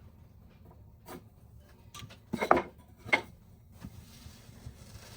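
A few light knocks and clatters of objects being handled, the loudest a pair about two and a half and three seconds in, over a faint background.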